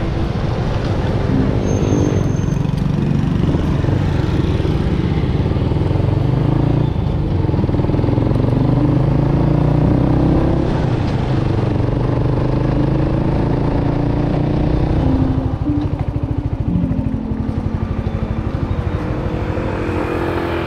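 Motorcycle engine running while riding in traffic, its pitch rising and falling with the throttle. Near the end it slows to a lower, pulsing beat.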